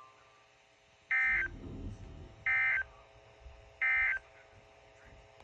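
Emergency Alert System SAME digital data tones: three short bursts of rapid two-tone data, about a third of a second each and evenly spaced about a second and a half apart. These are the end-of-message bursts that close the alert broadcast.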